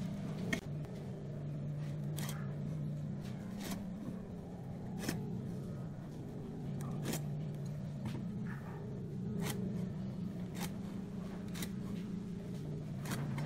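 Short scratches and ticks, roughly one every second or so, as a ballpoint pen draws marking lines across a pine board along a steel ruler and the ruler is shifted on the wood. They play over a steady low background hum.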